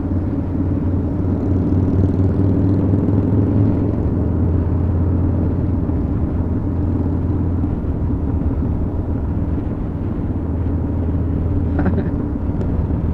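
Harley-Davidson Dyna Super Glide Custom's V-twin engine running steadily under way at road speed.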